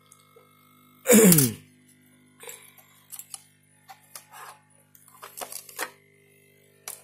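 A brief, loud squeal falling in pitch about a second in, then scattered light clicks and taps as the opened monitor's bare LCD panel and its board are handled.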